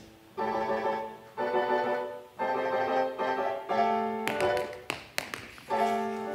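Piano chords struck about once a second, each held and fading, with a few sharp taps about four to five seconds in.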